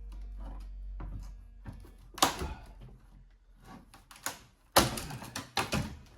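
Irregular wooden knocks and clunks, the sound of a door and the furniture behind it being pushed and handled, with sharp loud knocks about two seconds in and again near the end.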